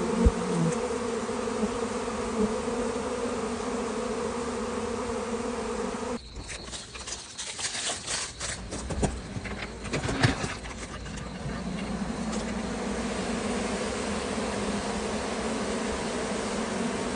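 A swarm of honeybees buzzing in a steady, dense hum. About six seconds in the hum gives way to a few seconds of scattered knocks and rustling, then the buzzing comes back.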